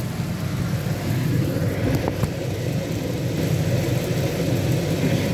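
Kitchen chimney exhaust fan running with a steady whir, over the sizzle of an onion, tomato and spice masala frying in a kadai as it is stirred. Two light spatula clicks come about two seconds in.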